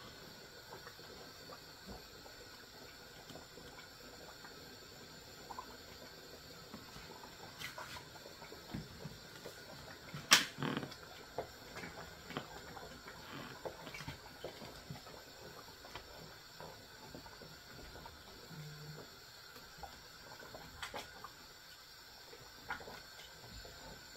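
Pot of chicken foot soup simmering on the stove: a low steady hiss with faint scattered ticks, and one sharp knock about ten seconds in.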